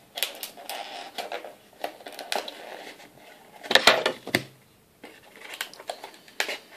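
Trading cards and their packaging being handled on a table: scattered taps, clicks and rustles, with two louder knocks about four seconds in.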